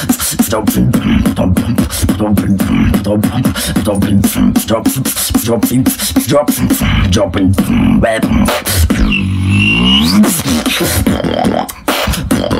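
Solo beatboxing: rapid mouth-made drum hits and clicks over a steady low bass hum. About nine seconds in, a swooping, bending-pitch effect with a high whistle-like tone takes over for about a second before the beat resumes.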